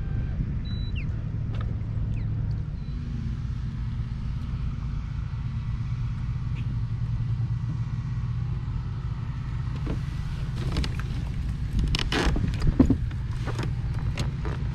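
Boat outboard engine running steadily, a low rumble. A run of knocks and rustles from about ten seconds in.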